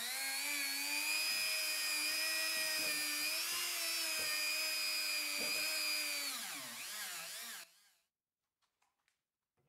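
Handheld rotary tool spinning a small disc against the rusty inside of a steel hammer head's eye, a steady high whine. Near the end the motor winds down, its pitch falling, and it stops at about eight seconds, followed by a few faint clicks.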